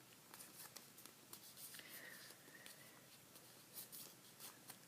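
Faint rustling and scraping of a sheet of paper being folded and creased by hand, in short irregular strokes.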